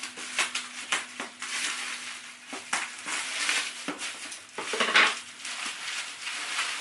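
Cardboard box and plastic packaging being handled and pulled open: irregular crinkling, rustling and crackling, with a louder crunch about five seconds in.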